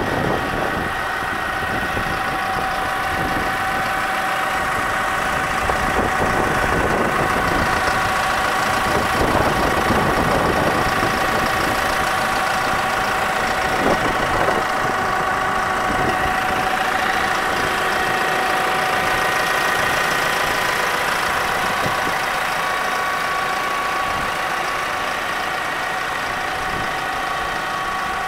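McCormick X4.50 tractor's diesel engine idling steadily.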